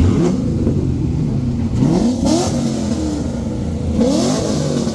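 Car engines accelerating hard past, rising in pitch twice: once about two seconds in and again about four seconds in, over a steady engine drone.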